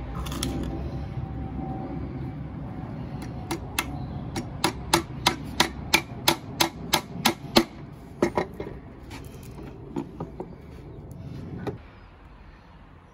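Claw hammer driving a nail into a softwood batten: a run of about fifteen sharp taps, about three a second, then a few lighter taps to finish.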